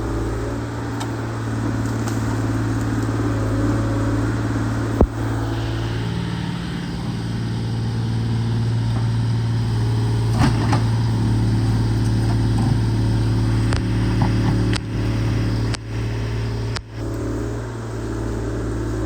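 Excavator's diesel engine running steadily under work, its pitch shifting slightly as the load changes, with a few abrupt breaks near the end.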